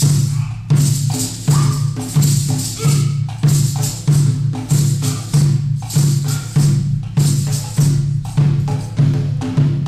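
Live hand percussion: a barrel drum on a stand struck with sticks and a large frame drum keep a steady beat of about three heavy strokes every two seconds, with lighter strokes and a bright rattle between them.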